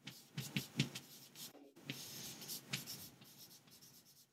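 Chalk writing on a chalkboard: a run of sharp taps and scratchy strokes as letters are written, with a brief pause partway through.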